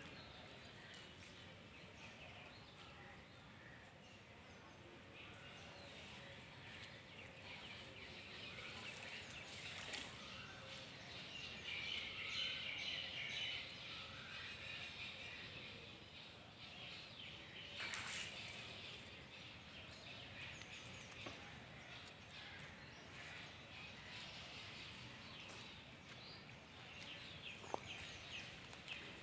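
Faint outdoor ambience with birds chirping, strongest about halfway through. A short high peep repeats about every two and a half seconds, with a few sharp knocks here and there.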